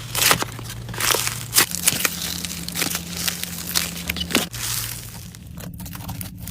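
Crunchy slime being squeezed and pressed, giving dense crackling and crunching that thins out over the last two seconds, over a low steady hum.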